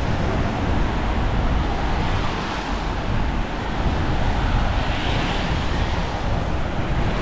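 Wind buffeting the microphone of a camera on a moving bicycle: a steady rumbling rush with no breaks.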